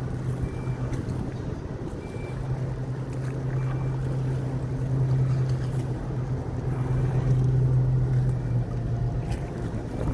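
A large engine running steadily: a continuous low hum over a rushing noise, with no change in speed.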